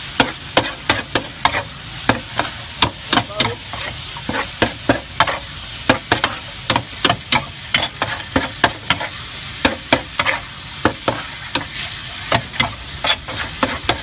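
Metal spatula clacking and scraping on a large flat pan as short noodles are stir-fried, in quick irregular strokes about three a second, over the steady sizzle of the frying noodles.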